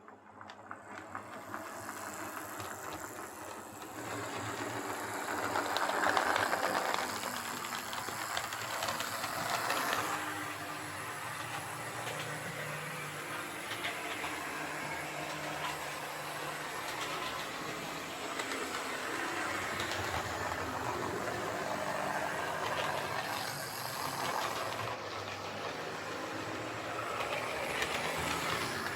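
HO scale Lima Class 33 model diesel locomotive running along the track, its pancake motor whirring and its wheels rattling over the rails. The sound grows louder over the first few seconds and then runs on steadily.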